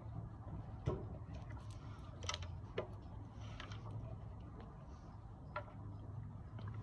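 Quiet classroom room tone: a low steady hum with a few scattered light clicks and taps from pens and desks as students write.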